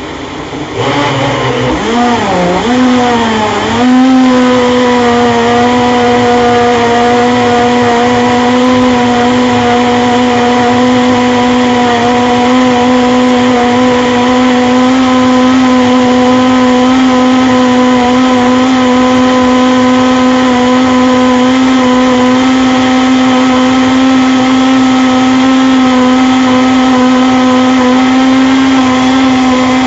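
Countertop blender motor running loud, blending a fruit smoothie. Over the first few seconds the pitch wavers and climbs as the motor comes up to speed through the whole fruit, then it settles into a steady whine.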